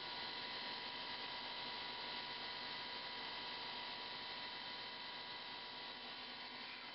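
Wood lathe running at speed, a steady hum with several steady tones, while sandpaper is held against the small spinning wooden plug.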